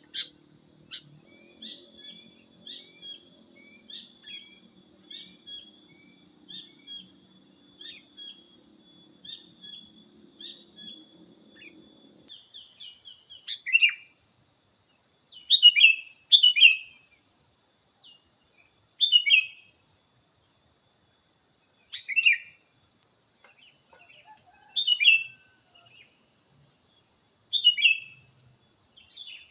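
Songbird calls: loud, sharp falling chirps in short groups every two to three seconds, starting about fourteen seconds in. Behind them is a steady high insect drone and, for the first twelve seconds, a quick train of small chirps over a low hum that stops abruptly.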